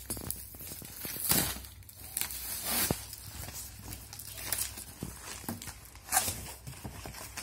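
Packing tape being peeled and ripped off a cardboard box by hand, in several short tearing bursts, with the cardboard flaps rustling and scraping.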